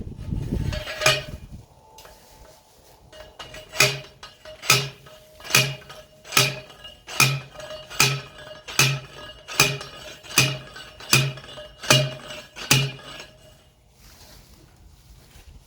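Steel T-post driver pounding a metal fence T-post into the ground: about a dozen evenly spaced, ringing metal clanks, a little over one a second, with a single clank about a second in before the steady driving starts.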